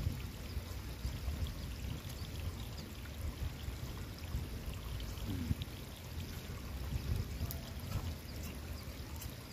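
Water trickling and running steadily in a flooded rice paddy, with a low rumble that comes and goes and a few small clicks.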